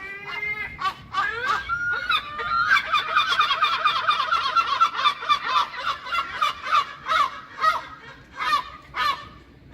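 Gulls calling: a few drawn-out gliding calls, then, about three seconds in, a fast run of short, repeated yelping notes that slows and fades near the end.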